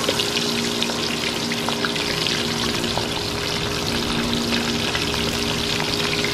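Whole seasoned snapper deep-frying in a large pot of hot vegetable oil: a steady, dense crackling sizzle over a low steady hum.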